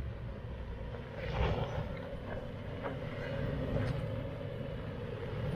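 Lifted Toyota 4Runner's 4.0 V6 running low as the truck creeps over rough dirt ruts on crawl control. There is a steady low rumble with a steady hum over it, and a few short clicks or crunches under the tyres.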